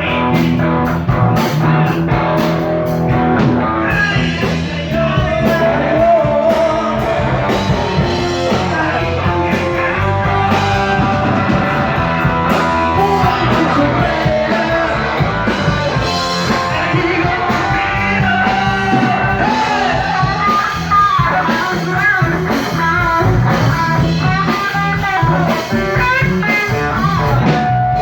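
Band jamming a blues-rock song: a sung vocal over guitar and drums with a steady beat.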